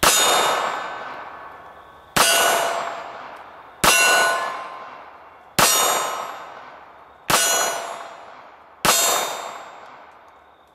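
Six pistol shots from a Magnum Research Micro Desert Eagle .380 ACP pocket pistol, about one and a half to two seconds apart. Each one is met at once by the clang of a steel target, which rings for over a second and dies away before the next shot.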